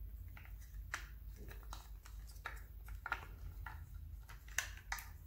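Faint rustling and light clicks of hands working insulated wires into the plastic housing of a cordless circular saw, with two sharper clicks near the end.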